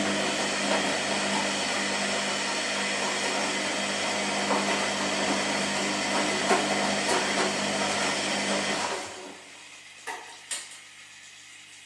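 Washing machine running: a loud, steady whir with a hum holds for about nine seconds, then drops off to a quieter running sound. Two short knocks follow, about half a second apart.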